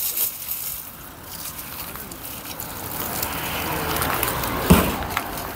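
A sledgehammer striking a pillar once near the end, followed by a few small knocks as broken pieces fall.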